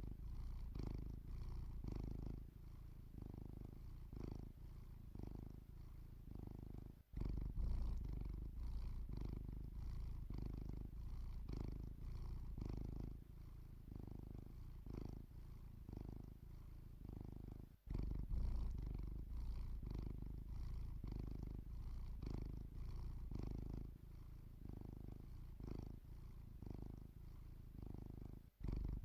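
Domestic cat purring steadily in a close, even rhythm of pulses. The sound breaks off for an instant about every eleven seconds.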